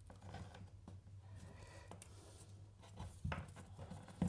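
Cat6 network cables being handled and fed through a plastic electrical back box: faint rubbing and light knocks of cable and fingers against plastic, with a couple of louder taps about three seconds in and near the end.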